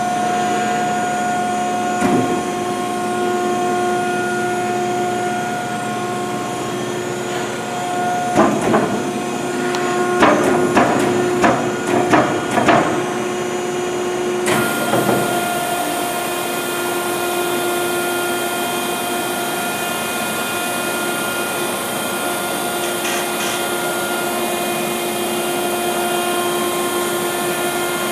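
Hydraulic pallet inverter cycling: its hydraulic pump unit hums steadily, with a run of metallic clunks and knocks from about eight to thirteen seconds in as the clamp and load shift. About halfway through, the pump's pitch changes and a hiss joins it.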